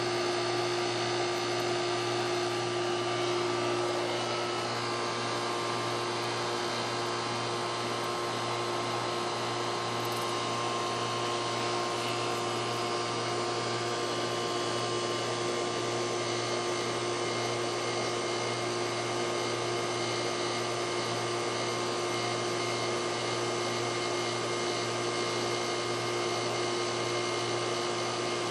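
A steady machine hum with a constant whine over a noisy hiss, never changing.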